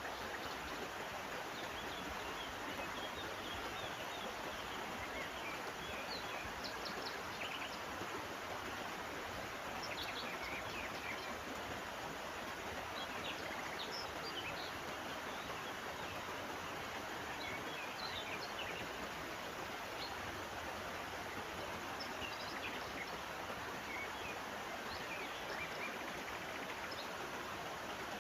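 Steady rushing of a river, with short bird chirps scattered over it.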